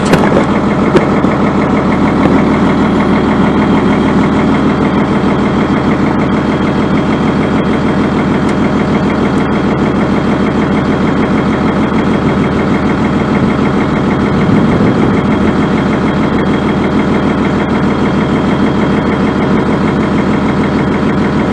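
Vehicle engine idling steadily and close, with a brief slight rise about two-thirds of the way through.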